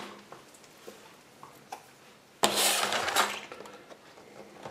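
Handling noise from opening a cardboard box or moving the camera: a few faint clicks, then a sudden loud rustling scrape about two and a half seconds in that fades away within a second or so.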